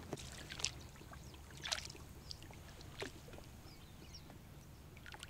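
Water splashing lightly around a small boat on a river, with several short splashes over a low steady background.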